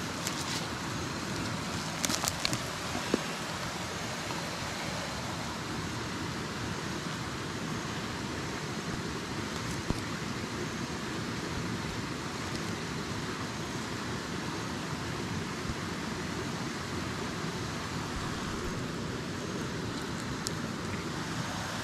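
Steady hiss of outdoor background noise, with a few short clicks in the first three seconds and one more about ten seconds in.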